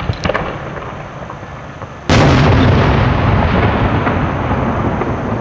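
Large aerial firework display shell going off with one deep, sudden boom about two seconds in that echoes on at length around a valley. At the start the echo of an earlier boom is fading, with a few sharp pops just after it.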